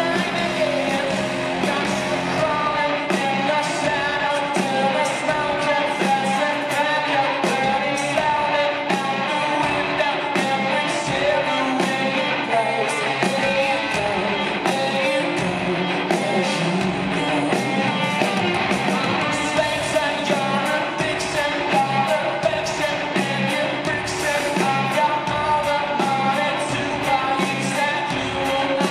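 Live rock band playing at full volume: a male lead vocal over an electric bass and a drum kit, with steadily struck cymbals, heard from the audience in an arena.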